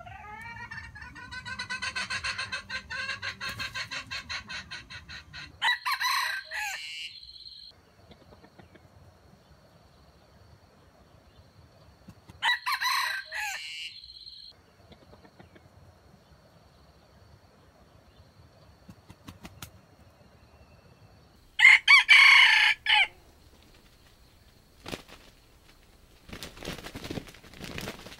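A rapid run of clucks for about five seconds, then a junglefowl rooster crowing three times, short crows spaced several seconds apart. A few rustles near the end.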